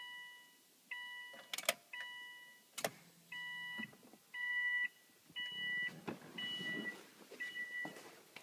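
A car's electronic warning chime beeping steadily about once a second, each beep a short two-tone note, with a few sharp clicks in the first three seconds.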